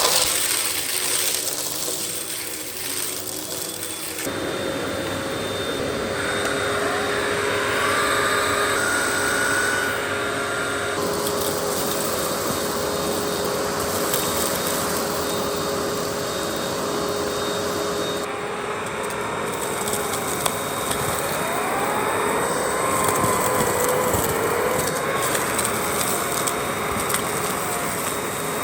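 Russell Hobbs Athena Pet bagless vacuum cleaner running, a steady motor drone with a whine whose pitch bends up and down as the airflow changes. The sound shifts abruptly a few times.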